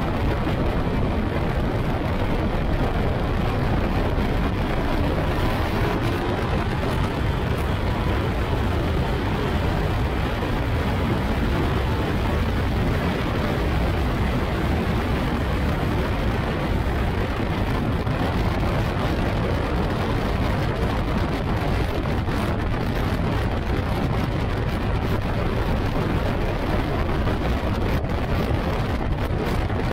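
Wind rushing over the open cockpit and buffeting the microphone at track speed, a steady loud rush, with the Yamaha R1 inline-four motorcycle engine of the Phoenix kit car running underneath it.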